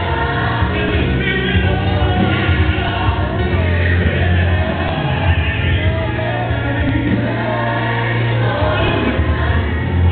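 Gospel choir music playing loudly, with choir singing over a heavy, steady bass line.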